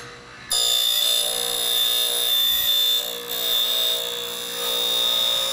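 Jet Model 8000 automatic key machine's cutter cutting a key blank: a loud, steady, high-pitched metallic whine with several tones, starting suddenly about half a second in.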